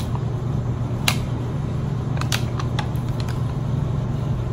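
Steady low hum of a room air conditioner, with a few light clicks and crinkles as a bun is handled in its clear plastic cup liner and bitten into.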